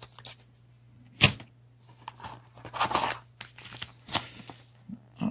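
Packaging rustling and crinkling as it is lifted out of a cardboard box, with two sharp clicks, one about a second in and one near four seconds, over a low steady hum.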